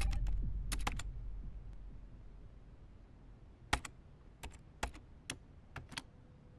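Computer keyboard keystrokes: a few sharp clicks near the start, then scattered single clicks about half a second apart. A low deep hum fades out during the first two seconds.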